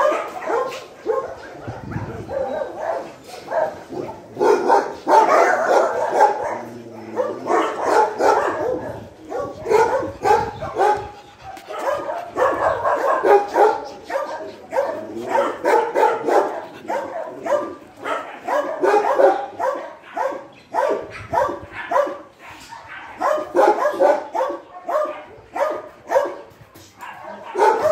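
Dogs barking over and over, in quick overlapping runs with a few short lulls.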